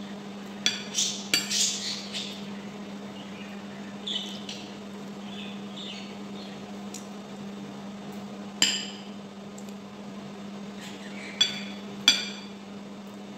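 A metal spoon and fork clinking and scraping against a ceramic dinner plate while eating: a quick run of ringing clinks about a second in, then single clinks spaced out, with two close together near the end. A steady low hum runs underneath.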